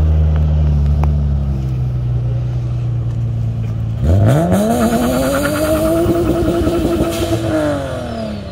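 A car engine runs low and steady, then about four seconds in revs sharply up and holds at high rpm for about three seconds while the car does a tyre-smoking burnout. The revs drop back near the end.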